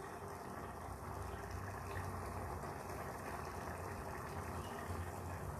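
Thick chicken dal boiling in a pan on a gas stove: steady bubbling and hiss.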